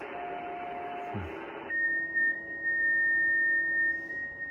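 Amateur radio transceiver audio on 6 m FT8: receiver hiss with a faint tone cuts off abruptly after about a second and a half. A steady, high-pitched digital-mode tone follows and holds.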